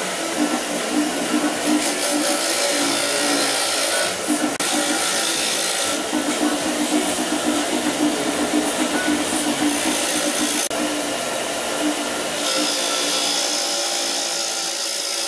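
Bench grinder running a wire wheel, with the broken steel kickstand pieces pressed against it to brush the break faces clean before welding. A steady motor hum under a scratchy hiss.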